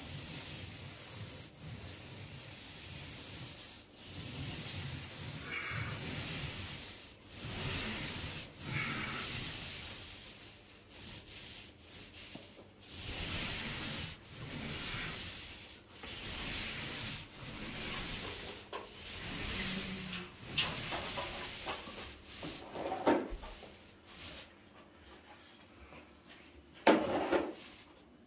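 Paint roller on an extension pole rolling ceiling paint onto a plasterboard ceiling: a rubbing swish repeated over many strokes, with short breaks between them. It dies down over the last few seconds, and there is a sharp knock near the end.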